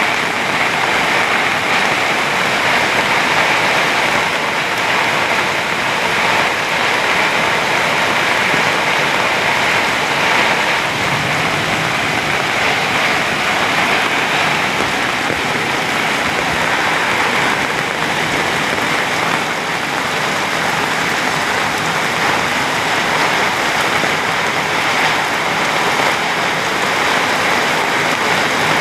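Heavy rain falling, a dense steady hiss with no let-up.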